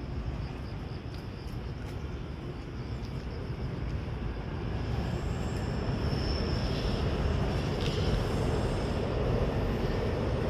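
Grass insects chirping in a high, pulsing trill, over a low rumble that grows louder from about halfway through.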